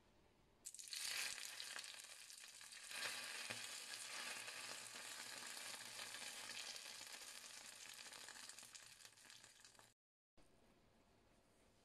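Food sizzling in hot oil: a dense hiss starts suddenly about a second in, swells again a couple of seconds later and slowly eases, then cuts off abruptly near the end.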